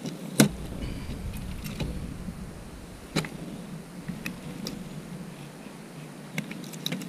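A fillet knife working through a fish on a plastic-sheeted wooden table, making scattered sharp taps and knocks. The loudest comes about half a second in, with a few more near the middle and end, over a steady low hum.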